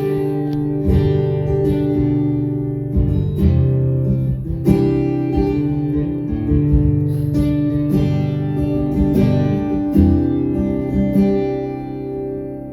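Acoustic guitar strumming chords, a strum about every second: the instrumental introduction to a country song.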